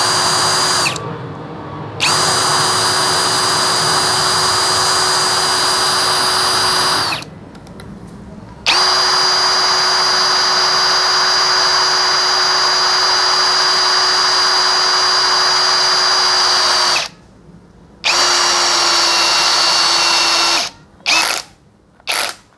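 DCK KDJZ03-13 cordless brushless drill-driver in low gear, screw mode, driving a 2-inch, thick-shank screw into mahogany. The motor whines steadily in several long runs with short pauses between them, then gives a few quick trigger bursts near the end as the screw head seats flush.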